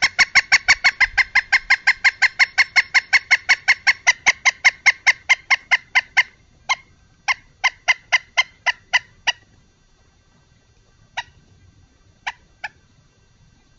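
A bird's long rapid call: loud, evenly spaced piping notes, about six a second for six seconds, then slower scattered single notes that thin out with long gaps near the end.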